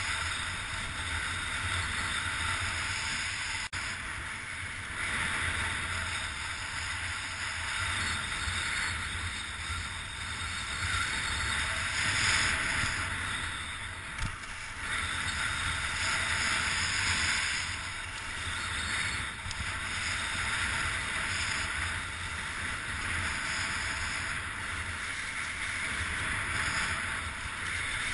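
Strong wind rushing over the microphone, a low buffeting rumble under a steady hiss that swells and eases over and over.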